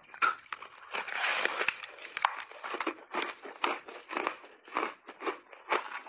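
Frozen layered ice sandwich being bitten and chewed close to the microphone: a dense crunching bite about a second in, then steady crunchy chewing of the ice at about three crunches a second.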